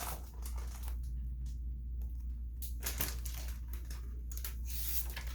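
A few scattered soft rustles and light clicks of a picture book's paper pages being handled and turned, over a steady low hum.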